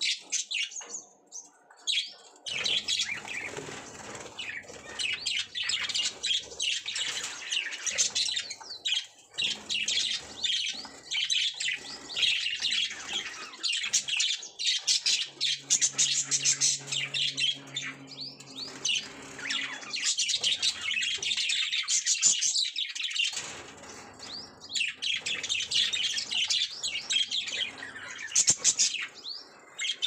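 A flock of budgerigars chattering with rapid, overlapping high chirps, dropping away briefly about a second in and again about two-thirds of the way through.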